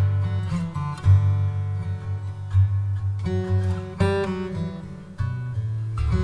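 Background music led by acoustic guitar, its notes starting sharply and fading over a steady bass line.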